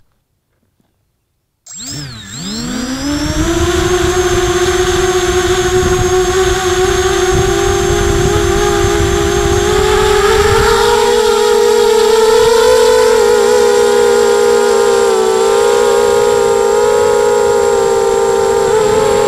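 FPV racing quadcopter's electric motors and propellers spinning up about two seconds in, heard close up through the quad's own onboard camera, then a steady whine that climbs a little in pitch about ten seconds in as it takes off and flies.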